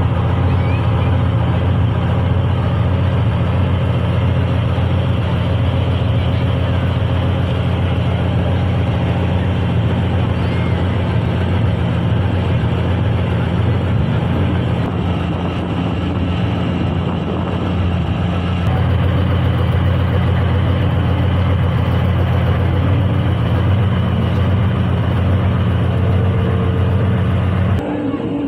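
PT-91M main battle tank's V-12 diesel engine running steadily, a loud, low, even drone from the engine and exhaust that cuts off sharply near the end.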